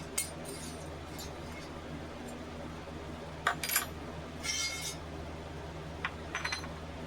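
A few light metallic clinks and taps from metal sword parts being handled, some with a brief ring, over a steady low hum.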